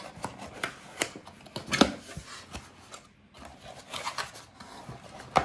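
Cardboard box being opened by hand: flaps and tabs pulled open, cardboard rubbing and scraping, with a string of sharp clicks and taps, the loudest about two seconds in.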